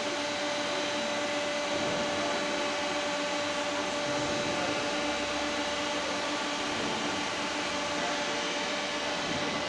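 Steady whirring hum of a running Makino EU64 wire EDM machine heard inside its open electrical cabinet, cooling fans and electronics giving an even rushing noise with several steady tones over it.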